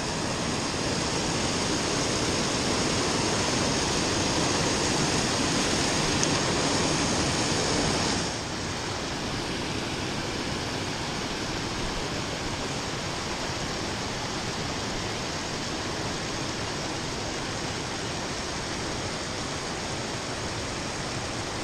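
Steady rush of river water spilling over low rock ledges and riffles. It drops a little quieter about eight seconds in.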